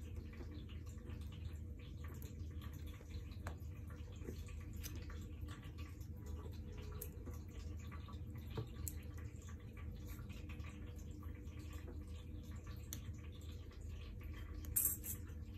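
Hands handling a lithium-ion battery pack and its BMS board and wires: scattered faint clicks and taps, with a brief rustle near the end, over a steady low hum.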